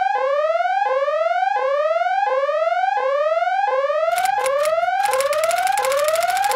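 Electronic alarm sound effect: a rising whoop repeating about every 0.7 seconds. From about four seconds in it is joined by harsh, rapid crackling noise.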